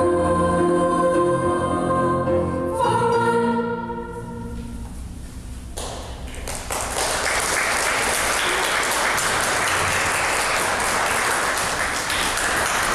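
A song sung by several voices ends on a long held chord that fades out about four seconds in; a couple of seconds later the audience breaks into applause that carries on steadily.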